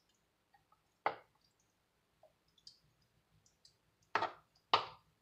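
Wooden spoon knocking against a disposable aluminium foil pan while cooked ground beef is spread in it: three short, sharp taps, one about a second in and two close together near the end, with faint small ticks between.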